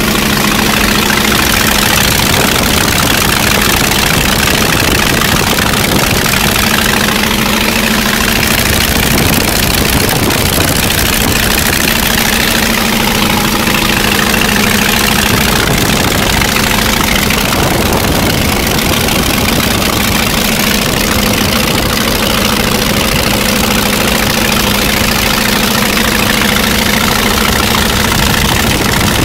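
Polikarpov Po-2's five-cylinder radial engine running steadily in flight, with loud wind rush over the microphone in the open cockpit.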